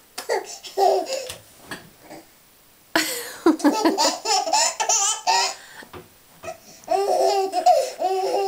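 Baby giggling and laughing: a few short giggles at first, then a longer bout of laughter from about three seconds in and another near the end.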